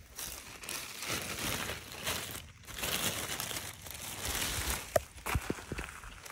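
Footsteps crunching over wet, gritty soil and pebbles in irregular spells, with a sharp click about five seconds in.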